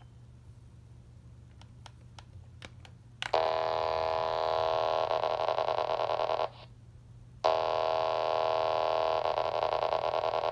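Paging data transmission on 27.255 MHz heard through a handheld CB radio's speaker: a loud, buzzy data tone about three seconds long starting a few seconds in, then after about a second's break an identical second burst. This is the pager transmitter sending the same page over and over.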